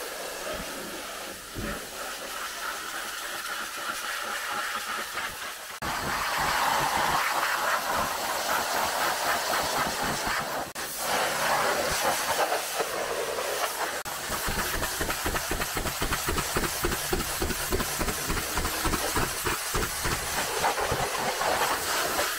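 High-pressure washer jet spraying water onto a car's paint and alloy wheels: a steady spray that changes character abruptly twice, with a fast low pulsing under it in the later part.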